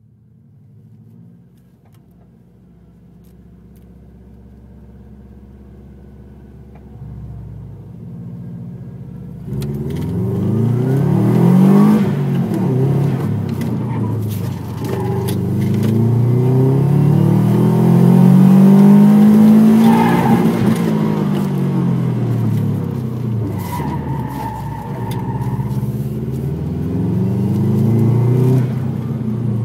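Subaru Impreza WRX's turbocharged flat-four engine heard from inside the cabin: running low and steady at first, then about nine and a half seconds in it is given full throttle and the revs climb and fall again and again as the car accelerates and slows through the course.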